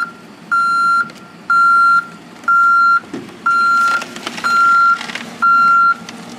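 A truck's reversing alarm beeping as the truck backs up: one steady high tone about half a second long, repeating about once a second. A few knocks and rattles come through about four to five seconds in.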